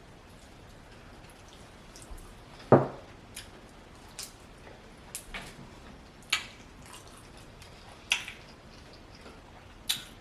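Close-up eating sounds: wet mouth smacks and clicks of chewing, coming every second or so, with the loudest one about three seconds in.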